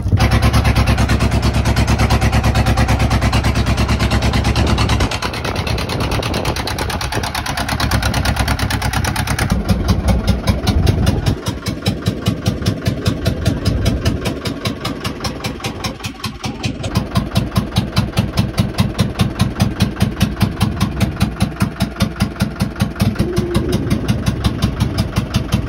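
Fishing boat's engine running with a steady, even pulse; its note changes about five seconds in and again about eleven seconds in.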